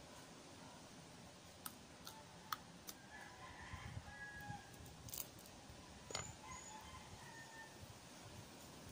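Quiet ambience with a rooster crowing faintly, about three to four and a half seconds in and again briefly later, and a few scattered sharp clicks.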